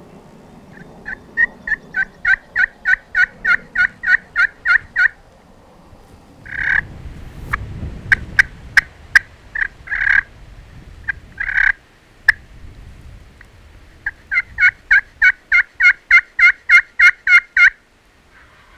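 Turkey yelping: two long runs of evenly spaced, sharp yelps, about four a second. Between the runs come a few loud single yelps and several sharp clicks.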